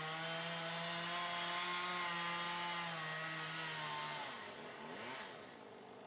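Two-stroke chainsaw running at steady high revs high up in a tree, cutting; the note drops away about four seconds in as the cut ends.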